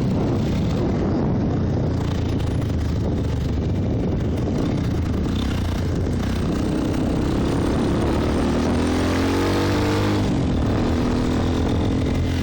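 Trail motorcycle engine running under way, with a steady rush of noise. Its note climbs over several seconds and drops back about ten seconds in.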